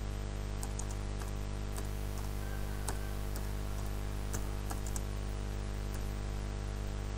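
Computer keyboard being typed on: irregular, scattered key clicks over a steady low electrical hum.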